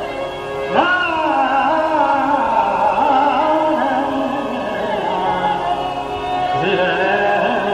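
Male Hindustani classical singing in Raag Nat Malhar: a long, ornamented vocal line that glides in pitch over a steady drone, with a fresh phrase entering about a second in.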